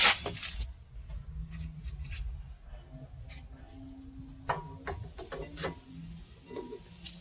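Hand work on a car's rear disc brake: a sharp metal clack, then scattered clicks and scraping as a brake pad or its clip is pushed into place in the caliper bracket.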